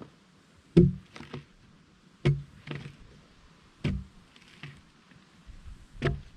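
Four heavy strikes on wood, about one and a half seconds apart, each followed a moment later by a lighter knock.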